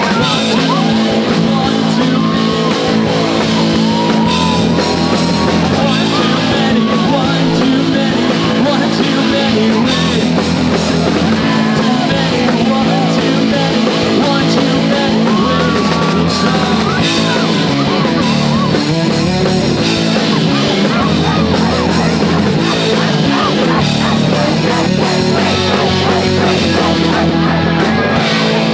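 Live rock band playing a loud song on electric guitars and drums.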